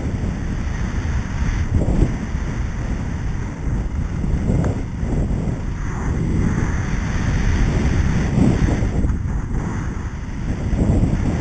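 Wind rushing over a helmet-mounted camera's microphone during a downhill ski run: a low rumble that swells and eases, with the hiss of skis sliding on packed snow underneath.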